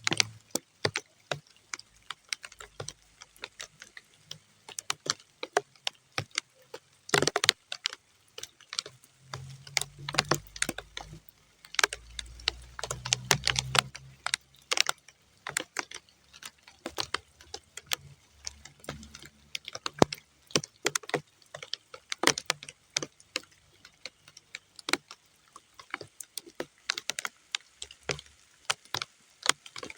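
Raindrops falling on muddy ground, heard as separate, irregular sharp drips and ticks several times a second rather than a steady hiss.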